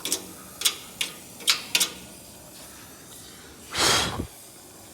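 A few sharp metallic ticks in the first two seconds, then a brief loud whoosh near the end, during oxy-acetylene tack welding on car body sheet metal.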